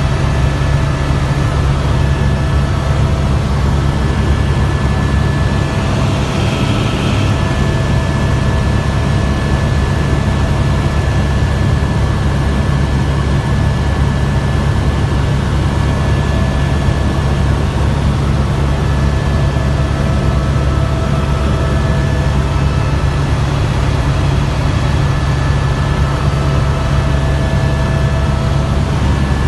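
Helicopter cabin noise in flight: a loud, steady low drone from the rotor and engine, with a thin, steady high whine over it.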